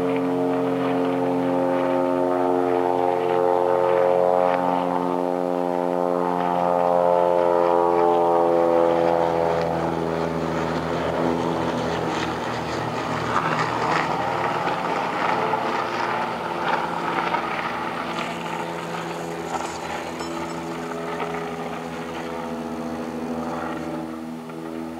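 Steady engine drone made of several tones, sliding slowly down in pitch over the first nine seconds or so, then giving way to a rougher, noisier rumble with a few knocks before the steady tones return near the end.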